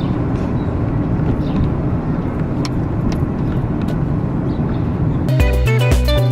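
Steady low rumble of motor vehicle noise. About five seconds in, background music with a heavy beat cuts in.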